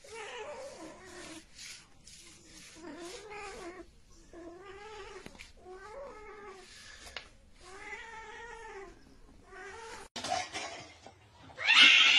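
A cat meowing again and again, about six drawn-out, rising-and-falling meows every second or two. Near the end comes a louder burst of hiss-like noise.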